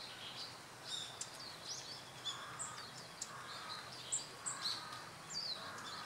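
Small birds calling with many short, high chirps and whistles, several a second, over a steady background hiss.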